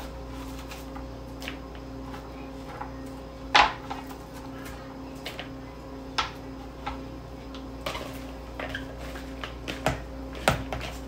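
Chef's knife cutting a red onion on a cutting board: irregular sharp knocks of the blade striking the board, the loudest about three and a half seconds in, over a steady low hum.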